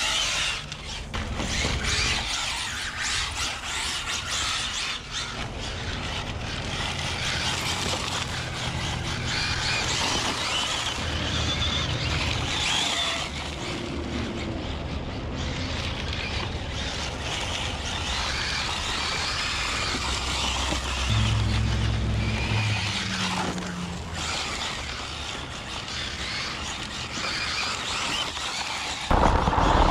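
Electric RC rally car driving and sliding on concrete and loose gravel: the motor whines, rising and falling in pitch with the throttle, over the scrabble of the tyres on the surface.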